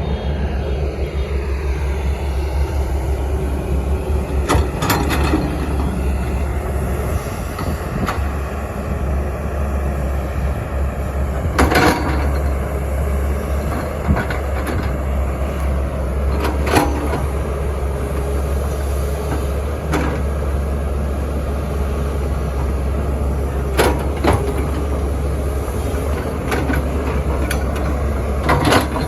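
Heavy diesel machinery and trucks running steadily with a deep rumble, broken by about five sharp knocks.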